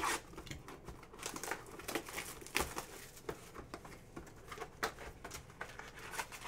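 Clear plastic shrink wrap being torn off a trading-card hobby box and crumpled: a run of irregular crinkles and crackles.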